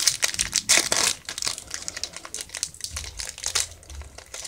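Foil wrapper of a Pokémon Sun & Moon booster pack crinkling and tearing as it is opened by hand, with the loudest crackles in the first second.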